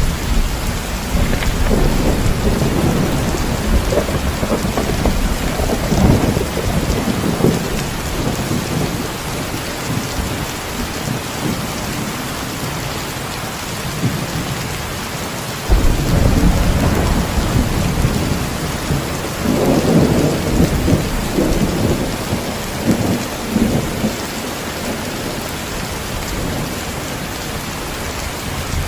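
Heavy, steady rain with thunder: a low rumble dies away over the first several seconds, then thunder starts suddenly about halfway through and rumbles on for several seconds before fading back into the rain.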